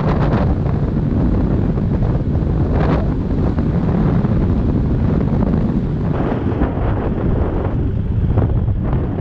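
Strong wind buffeting on the microphone over a dual-sport motorcycle's engine running at steady speed on a gravel road.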